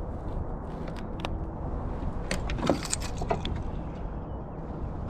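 Wind buffeting the microphone as a steady low rumble, with a few light clicks and taps from handled fishing gear in the middle.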